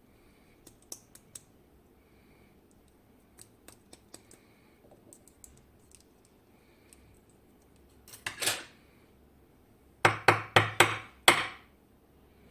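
Small metal tools clicking against a Kaba Gemini Plus lock cylinder while its pins are taken out, with a short scrape about 8 seconds in. Near the end comes a quick run of about six sharp taps, as the pins are stuck in the cylinder.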